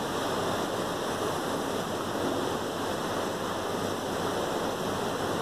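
Mutton karahi masala with yogurt sizzling and bubbling in hot oil in the wok: a steady, even hiss.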